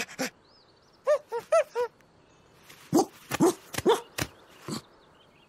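A cartoon dachshund yipping and barking: four quick, high yips about a second in, then a cluster of lower barks mixed with short sharp sounds a couple of seconds later.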